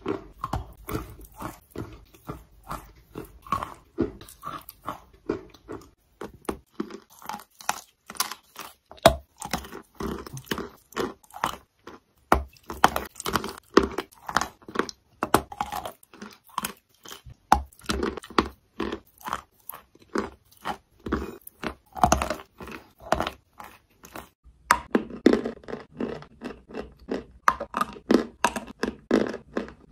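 Lumps of chalk being bitten and chewed, a dense run of crisp crunches several times a second, changing where one clip gives way to the next.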